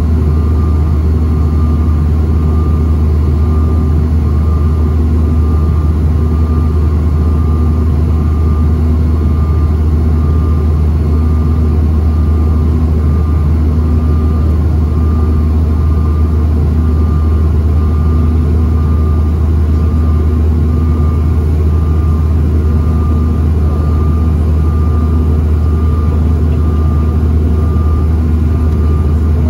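Steady cabin drone of a Bombardier CRJ-900 in flight, heard from a window seat: its rear-mounted GE CF34 turbofans and the rush of air over the fuselage, heaviest in the low end. Faint tones ride above it, pulsing on and off regularly.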